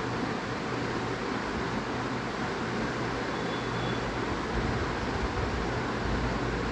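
Steady even hiss with a low hum as the mutton masala simmers with added water in an open aluminium pressure cooker on the stove.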